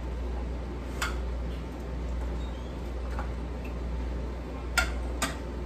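A metal ladle clinking against the canning funnel and pot while pickle brine is ladled into jars: a light click about a second in and two sharper clicks near the end, over a steady low hum.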